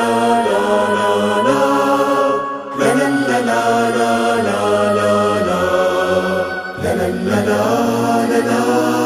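Background music: a chanted Arabic nasheed, voices holding long notes in phrases, with two short breaks between phrases.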